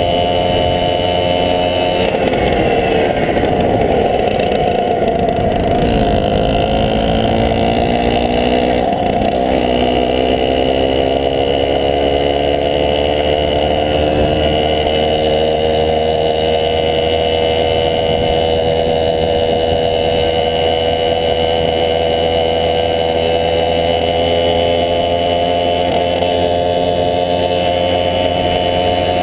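1971 Tunturi Maxi moped's small two-stroke engine running while being ridden. The engine note drops over the first few seconds, dips briefly again about nine seconds in, then climbs gradually and holds steady.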